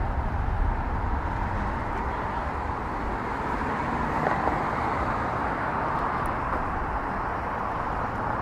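Steady city street ambience: a continuous wash of outdoor noise with a low rumble, like traffic going by.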